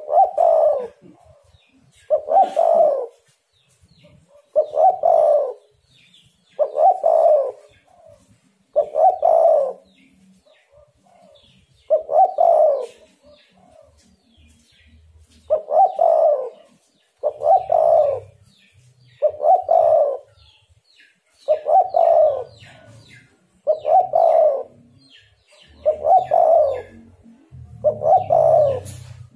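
Spotted dove cooing steadily: its short, low coo phrase is repeated about every two seconds, with a slightly longer pause near the middle.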